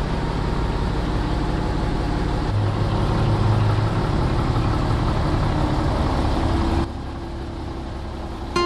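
Scania 113H truck's straight-six diesel engine idling just after starting, running a little harder through the middle, then dropping to a quieter idle near the end.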